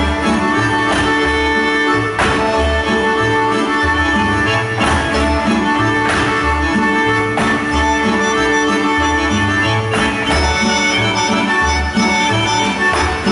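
Live Bunjevac folk dance music from a small band, with accordion and double bass among string instruments, playing a dance tune over a steady, pulsing bass beat.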